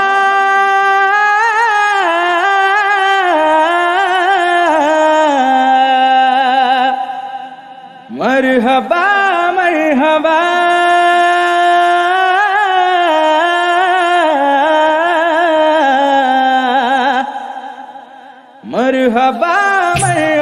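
Singing: long, ornamented held notes with no clear words, in two long phrases that each fade away, a third phrase beginning near the end.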